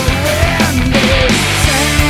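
Loud rock music with a steady drum beat and a wavering melody line.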